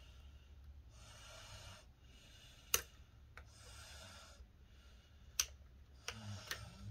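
A man breathing heavily and audibly close to the microphone, a slow breath every couple of seconds. Several sharp clicks of handling parts come between the breaths, the loudest about three seconds in and a pair near the end.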